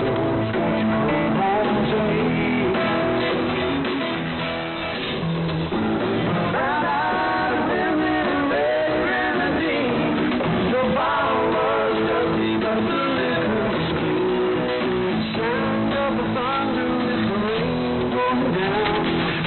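A song with guitar and singing, played over a shortwave AM pirate radio broadcast.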